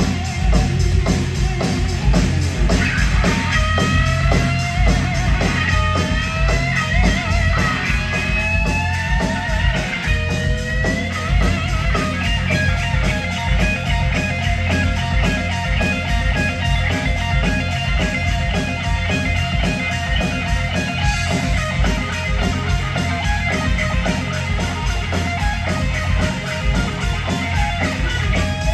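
Live rock band playing loud, with an electric guitar lead whose notes bend up and down a few seconds in, then give way to fast repeated guitar lines over drums and bass.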